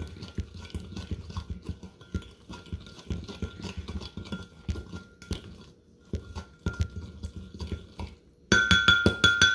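Zip-lock bag of saltine crackers coated in seasoned oil being shaken and worked by hand: fast, rhythmic rustling of the plastic with the crackers knocking together inside. A high steady tone runs faintly underneath and comes in much louder near the end, along with quicker shaking.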